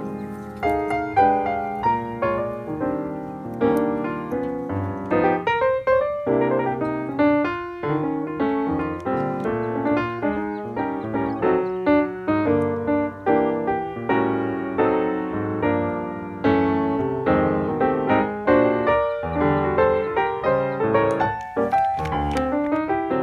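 Background piano music: a steady run of notes, each struck sharply and fading.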